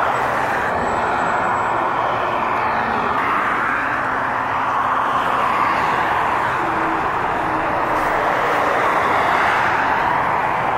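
Steady road and wind noise of a moving vehicle on a highway, heard from inside it, with faint high tones in the first few seconds.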